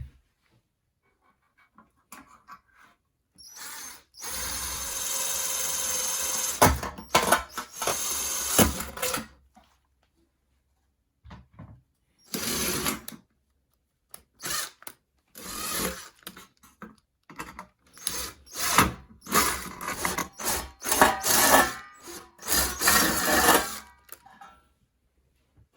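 Electric drill boring through thin stainless steel sheet: one steady run of about five seconds, then a series of short stop-and-start bursts.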